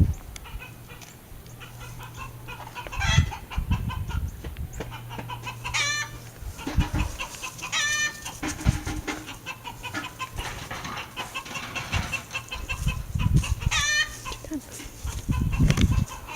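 Chickens clucking continuously, with three loud squawking calls and a few dull thumps.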